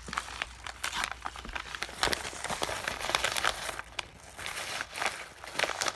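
Plastic bags and paper crinkling in quick, irregular crackles as the bags are stuffed into a folded paper pouch for filling.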